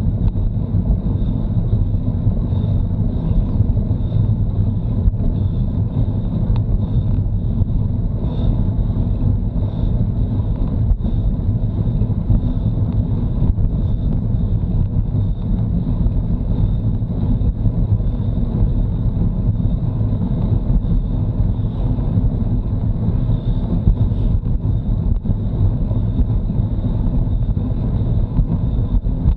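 Steady wind rumble buffeting the microphone of a Garmin Virb action camera on a moving road bike, a constant low rush with no breaks.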